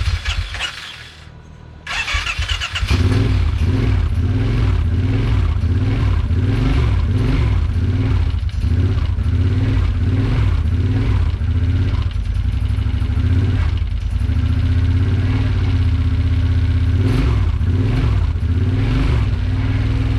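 The 2008 Kawasaki Brute Force 750's V-twin engine is cranked about two seconds in, catches and runs, its speed rising and falling in a steady wave, with a bigger rev near the end. This is its first start after an engine rebuild, with an ignition fault suspected by the owner.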